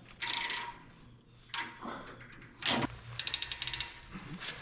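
Hand PEX crimp tool clamping rings onto PEX water pipe fittings: a few separate clicks and clacks, then a quick run of about a dozen clicks near the end.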